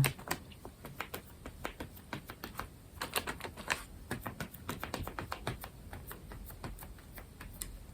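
Soft, quick, irregular taps of a paintbrush dabbing paint onto paper, several a second, coming faster from about three seconds in.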